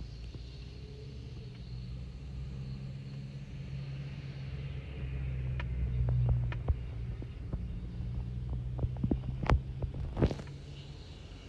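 Low steady rumble and hum that swells about six seconds in, with a run of sharp clicks and taps in the second half.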